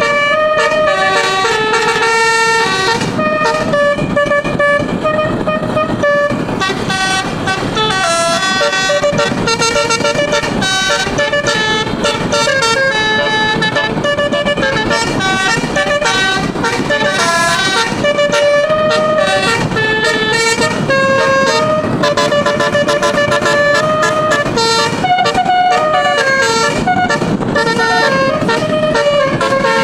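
A tour bus's 12-trumpet 'telolet' (basuri) musical air horn playing a melody, note after note in quick steps with hardly a break, over a low rumble.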